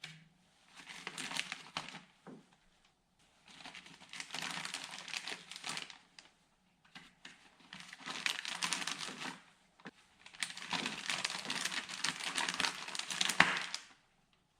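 Crinkling, rustling handling noise of parts packaging, in four bursts of one to four seconds with short quiet gaps between them.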